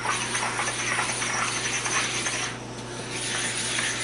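A hand-held sharpening stone rubbed back and forth over the metal surface of a Bridgeport milling machine, a gritty scraping that eases briefly a little past halfway. The stone is knocking down high spots raised by dings on the mill.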